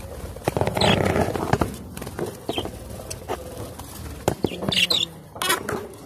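Caged budgerigars and lovebirds chirping and chattering, mixed with fluttering wings and light knocks against the cage.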